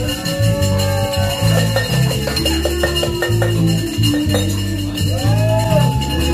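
Music with a steady, repeating bass line and percussion, in a Latin, salsa-like style.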